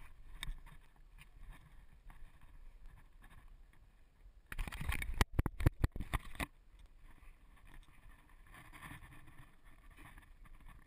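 Scraping and knocking of a climber's body, clothing and camera against sandstone, muffled by the camera's waterproof housing. About halfway through comes a louder two-second burst of scrapes with several sharp knocks.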